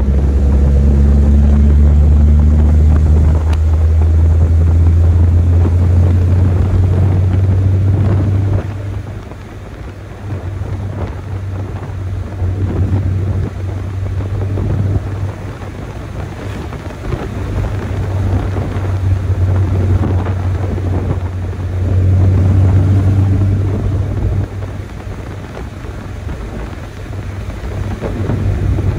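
Chevrolet S10 pickup's stock four-cylinder engine driven hard, a deep steady drone. It is loud for the first eight seconds or so, then drops away and swells back up several times.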